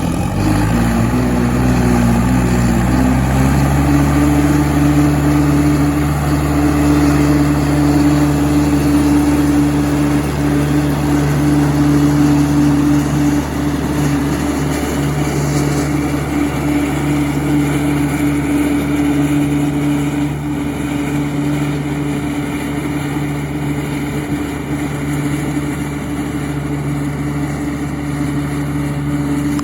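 Turbocharged John Deere 3020 tractor engine picking up speed over the first few seconds, then running steadily at a constant speed.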